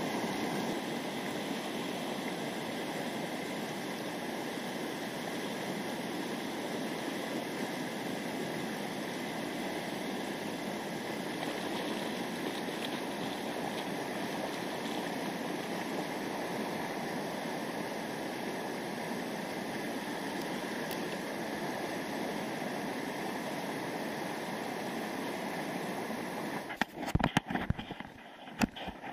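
River water flowing steadily, an even rushing sound. Near the end it breaks into irregular bumps and knocks.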